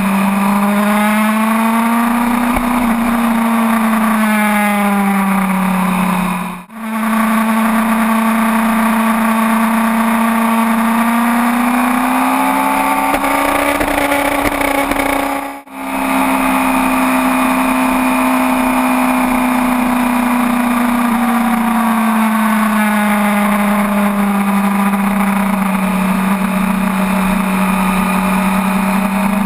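Sportbike engine running at steady mid revs from the rider's seat, its pitch slowly rising and falling as the throttle is rolled on and off through the curves. The sound drops out briefly twice.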